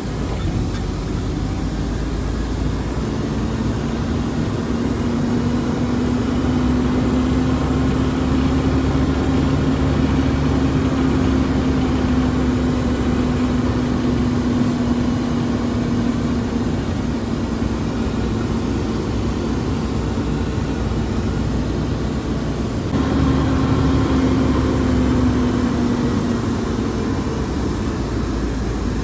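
Truck engine running steadily, a low drone whose pitch slowly rises and falls. The sound changes abruptly about three-quarters of the way through.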